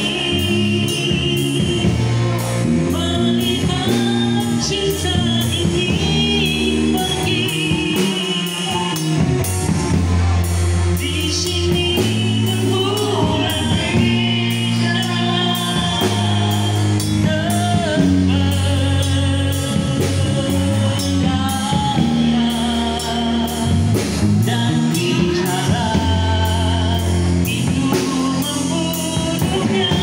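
Live rock band playing: a male singer on a microphone over electric guitar played through an amplifier and a drum kit with cymbals.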